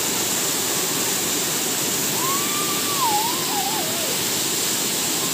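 Waterfall pouring into a rock pool: a steady, loud rush of falling water. About two seconds in, a single wavering call rises, then falls, and lasts under two seconds.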